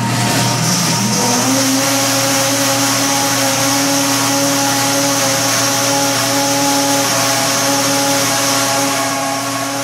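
Countertop blender motor running, spinning up in pitch over the first second or so and then holding a steady whirring as it blends an iced cappuccino of milk, coffee, chocolate and ice.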